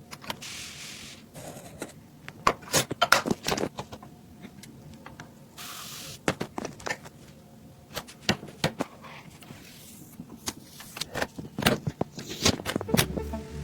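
PC components and their packaging being handled: a string of sharp clicks and taps, with two short sliding or rustling noises, one at the start and one about six seconds in.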